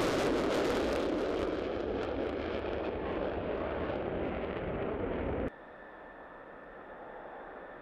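F-16 fighter jet engine noise as the jet climbs away after takeoff, fading and losing its high hiss as it recedes. The sound cuts off abruptly about five and a half seconds in, leaving a faint steady hiss with a thin high whine.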